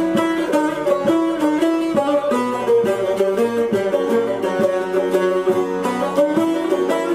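Kurdish folk melody played on a long-necked saz and a banjo-bodied long-necked lute, plucked in quick strokes without singing.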